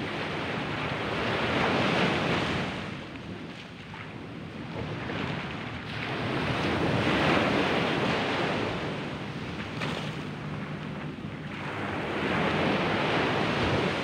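Small ocean waves breaking and washing up onto a sand beach, swelling and easing in three surges about five seconds apart. Wind buffets the microphone.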